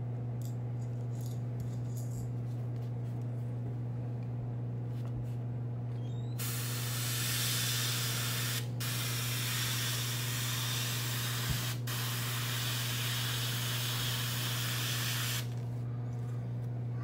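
Airbrush spraying white paint through a stencil: a steady hiss that starts about six seconds in and lasts about nine seconds, broken twice for an instant. An air compressor hums steadily underneath.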